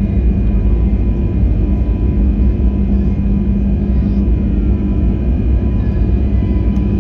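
Airbus A321neo's Pratt & Whitney geared turbofan engines heard inside the cabin: a steady loud drone with a constant low hum.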